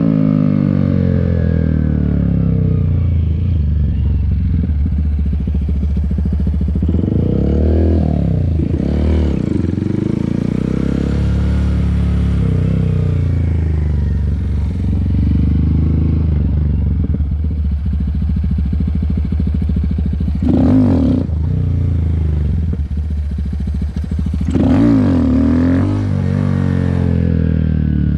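Honda Grom's small single-cylinder engine under hard riding, its revs climbing and falling again and again, with two sharp high climbs late on, about 20 and 24 seconds in. The bike is on a clutch near the end of its life.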